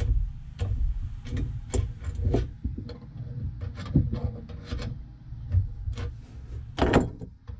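Thread tap being turned with a wrench in the fuel tank's threaded pickup port, scraping and clicking as it cleans junk out of the threads. Irregular clicks come about twice a second, with a louder click near the end.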